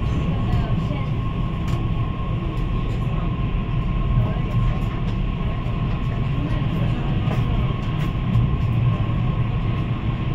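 Cabin noise inside a CR400AF-Z Fuxing high-speed train running at speed: a steady low rumble with a thin, constant high tone above it.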